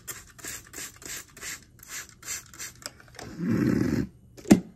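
A plastic trigger spray bottle spritzing water about eight times in quick, even succession, then a louder rushing sound for under a second and one sharp knock near the end.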